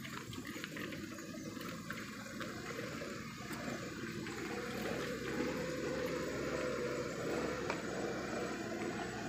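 Steady rushing noise of travel along a rough, corrugated dirt road, with a vehicle engine running low underneath.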